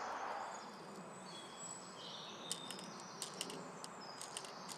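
Light, irregular high-pitched clicks as 0.12 g 6 mm plastic BBs are dropped one by one into a P698 airsoft pistol magazine, starting a couple of seconds in.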